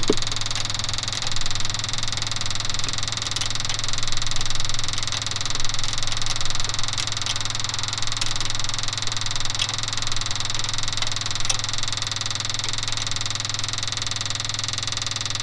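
A steady mechanical hum that doesn't change, with a few faint clicks now and then from a wrench on the fuel line fittings.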